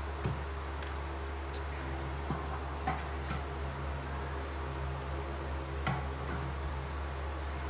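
Steady low background hum with a few faint, scattered clicks and ticks.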